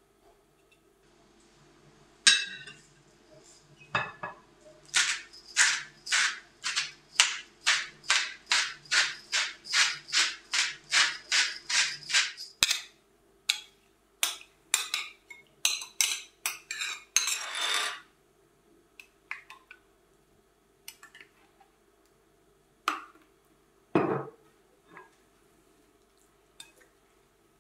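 A garlic clove being grated on a small metal hand grater: a run of even scraping strokes, about three a second. Then a metal spoon clinking and scraping against a glass dish and bowl, with a single louder knock near the end.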